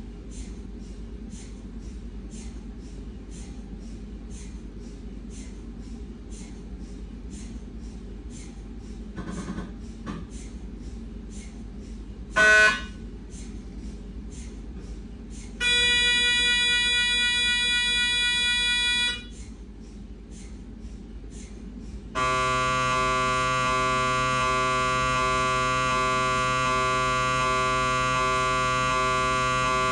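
Siemens MAGNETOM Lumina 3 T MRI scanner. At first there is only a low hum with soft regular ticks, about two a second. Then the localizer scan starts: a brief loud chirp about twelve seconds in, a three-second tonal buzz, and from about twenty-two seconds a loud, steady, many-toned gradient buzz.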